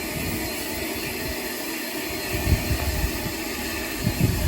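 Steady hiss with a few low rumbling bumps.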